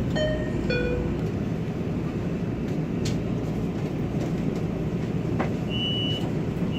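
MRT-3 train running, heard from inside the carriage as a steady low rumble. A falling two-note chime sounds at the start, and a short high beep comes twice near the end.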